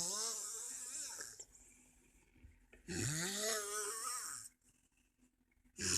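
A sleeping man snoring, with one long, wavering snore about every three seconds.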